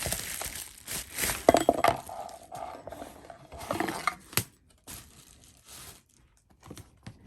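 Packaging crinkling and rustling as a knife box is unpacked, with a few sharp clicks and knocks. After about four seconds the rustling fades to scattered light clicks and taps.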